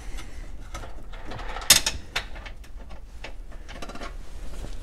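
Handling clatter of parts and tools around a van's seat base: scattered small clicks and knocks, with one sharp clack about two seconds in.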